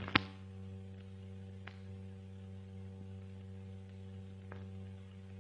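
Steady low mains-type hum and faint hiss on an old film soundtrack, with one sharp click just after the start and two faint ticks later.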